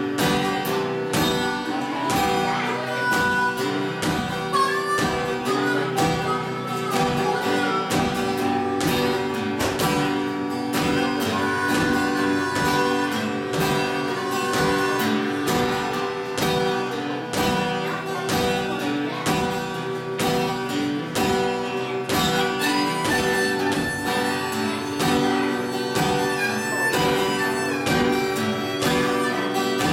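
Acoustic guitar strummed in a steady rhythm under a harmonica playing a melody of held and sliding notes, an instrumental break in a folk-blues song.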